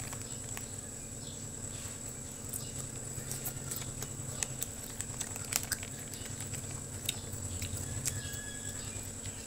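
Faint scattered clicks and crackles of a plastic snack packet being handled while a snack stick is taken out of it. Underneath run a steady low hum and a thin, steady high-pitched tone.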